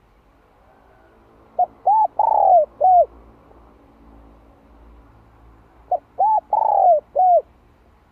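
Spotted dove cooing: two calls about four seconds apart, each of four coos: two short ones, a longer drawn-out third, then a short closing coo.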